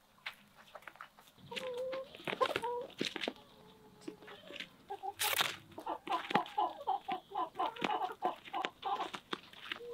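Hens clucking while they peck at pizza slices on bare ground, their beaks giving many sharp clicks and taps. From about six seconds in the clucks come in a quick run, about five a second, with a brief louder rush of noise just after five seconds.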